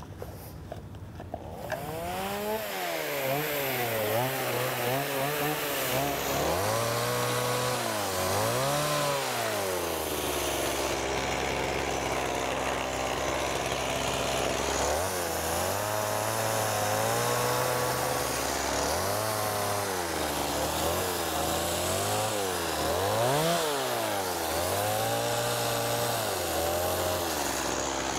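Chainsaw carving into a wooden tree trunk, starting about two seconds in. Its engine revs rise and fall over and over as the cuts are made, and it holds steady for a few seconds in the middle.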